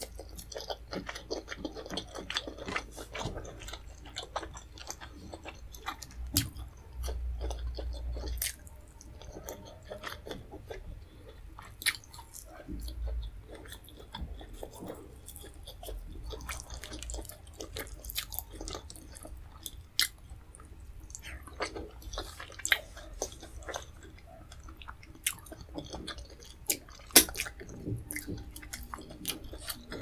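Close-miked chewing and wet mouth sounds from eating leafy vegetable soup with fufu by hand, with frequent sharp smacks and clicks. There is one especially loud click about 27 seconds in, and a brief low rumble about 7 seconds in.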